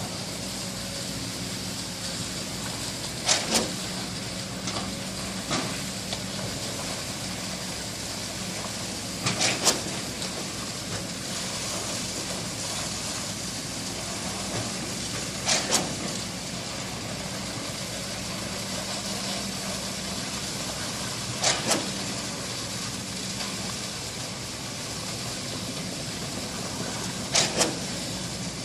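Construction-site machinery: a steady engine hum, with a pair of sharp knocks repeating about every six seconds.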